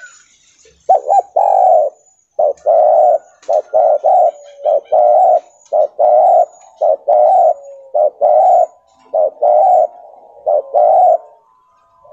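Spotted dove (tekukur) cooing in a stuttering style: about nine loud phrases from about a second in, each of short clipped coos running into longer held notes. Faint high chirps sound in the background.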